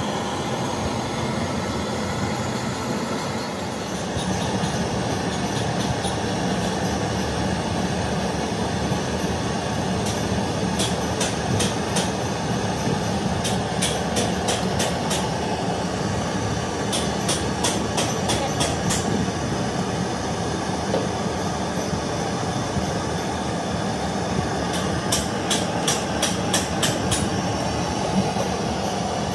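Gas blowtorch flame burning with a steady rushing noise. Several runs of rapid light clicks come in, about a third of the way in and again near the end.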